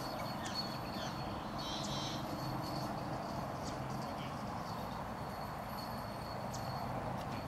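Outdoor background: a steady hiss with a faint, high, steady tone, a few soft clicks and a brief chirp about two seconds in.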